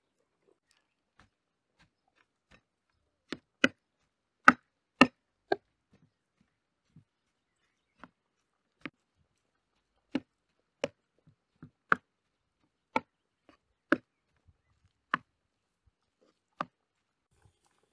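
A flat stone used as a masher knocking against the bottom of a frying pan while mashing boiled potatoes: about fifteen sharp knocks at uneven intervals, with silence between them.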